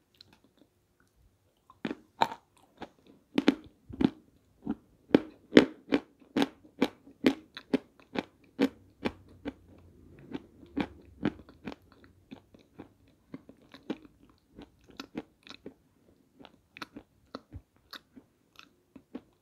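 Close-miked chewing of dry, crumbly edible clay (peschanka), a quick run of sharp crisp crunches. It starts about two seconds in, is loudest in the first half and grows softer towards the end.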